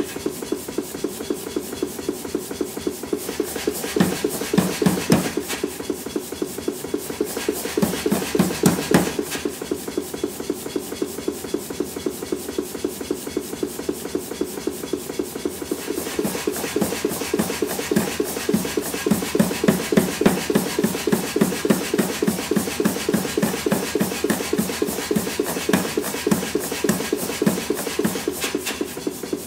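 Rapid, even hammer blows on a red-hot EN9 steel hammer head held in tongs over the anvil horn, about three to four blows a second, as the neck of the head is forged.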